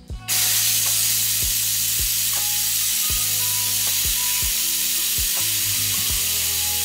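Loud steady hiss of an air-powered vacuum bleeder sucking brake fluid out of the brake lines. It cuts in suddenly right at the start. Background music with a steady beat plays underneath.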